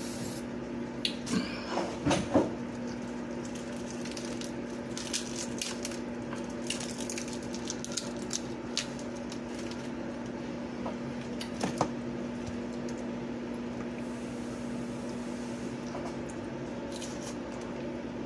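Sounds of eating battered fried shrimp by hand: the crust is pulled apart and chewed, giving a scatter of small crackles, clicks and soft wet squishes. A steady low hum runs underneath.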